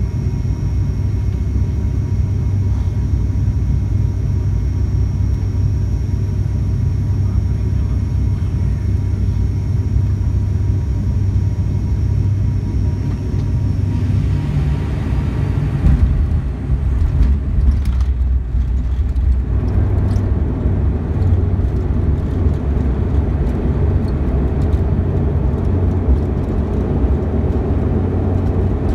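Cabin noise of an ATR 72-600's twin turboprop engines and propellers: a steady low hum with a thin high whine on final approach, then the touchdown about halfway through, with a few knocks and rattles. From about two-thirds of the way through, the rollout noise grows louder and rougher.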